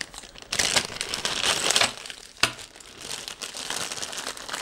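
Plastic packaging bag of mounting hardware crinkling as it is handled and opened, in irregular bursts, with one sharp click about two and a half seconds in.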